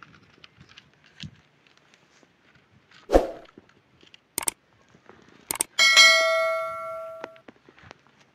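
A dull thump, then two sharp mouse clicks a second apart, followed by a bright bell ding that rings out and fades over about a second and a half: the click-and-ding sound effect of a subscribe-button animation.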